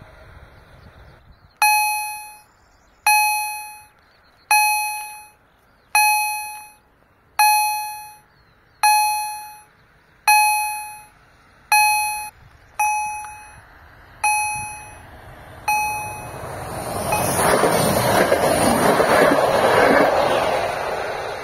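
Level-crossing warning gong from an EHL-S10 electronic generator: eleven ringing strikes about one and a half seconds apart, each dying away, the last few quieter. After the gong stops, a passenger train passes over the crossing with a rush of wheel and rail noise that builds and peaks near the end.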